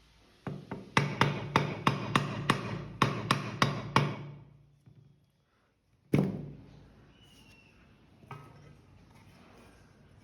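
A quick series of sharp knocks, about a dozen at roughly three a second, as of hammer blows; after a short pause comes one more single knock.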